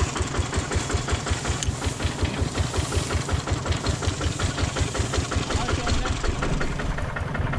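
Single-cylinder diesel engine of a two-wheel walking tractor idling with an even chugging beat, about seven beats a second.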